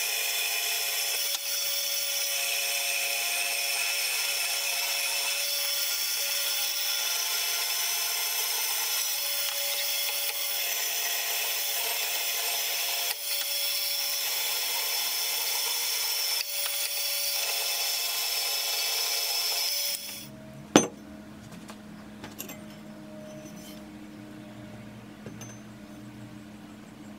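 Band saw cutting through a cast aluminium hatchet handle: a steady, high-pitched metal-cutting whine and hiss. About twenty seconds in it stops abruptly, leaving a quieter low hum and a single sharp click.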